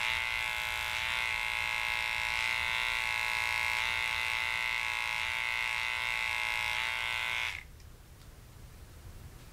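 Small electric pet clipper buzzing steadily as it trims the hair on a dog's paw pads, then stopping abruptly about three-quarters of the way through.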